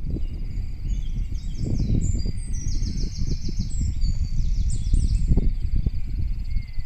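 Wind buffeting the microphone in a low, gusting rumble, with high-pitched chirping trills running over it.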